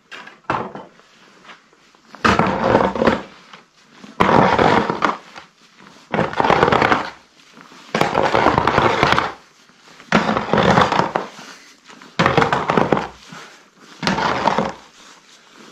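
Long-handled tool scraping wet mud across a cobblestone yard in seven strokes, one about every two seconds.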